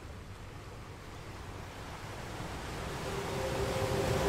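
A steady wash of sea-like noise that grows steadily louder, with music tones fading in about three seconds in.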